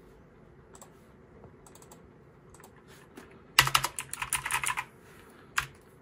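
Typing on a Pictek PC244A mechanical keyboard: a few faint key clicks, then a quick run of clacking keystrokes starting just past halfway, and one more keystroke near the end.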